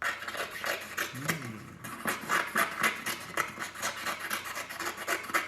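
Paper being cut: a rapid series of crisp, rasping cutting strokes, several a second, with a short break about two seconds in.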